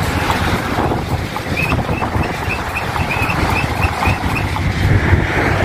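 Steady mechanical rumble with wind buffeting the microphone. A quick run of about ten short high chirps comes about a second and a half in and lasts roughly three seconds.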